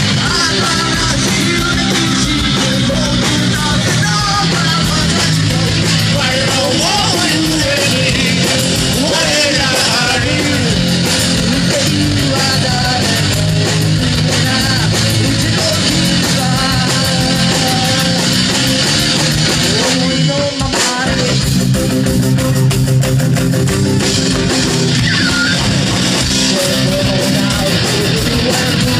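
Live rock band playing loud, with distorted electric guitars, bass and drums. The band cuts out for an instant about twenty seconds in, then comes straight back in.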